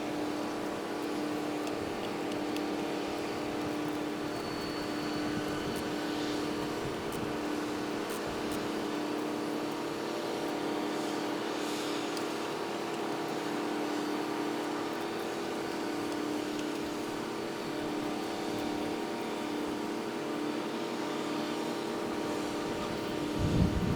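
A steady, engine-like mechanical drone with a strong hum, sped up fivefold, with a brief low thump near the end.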